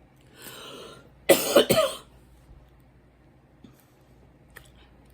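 A person coughing in a short run of three or so sharp coughs about a second in, after a softer breath or throat sound. Faint clicks follow later.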